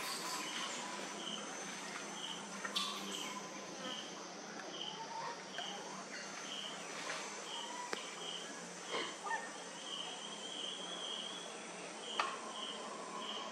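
An insect chirps at a steady, even pace, a short high note about once a second, over a constant high insect hiss. A few sharp clicks and brief short calls break in here and there.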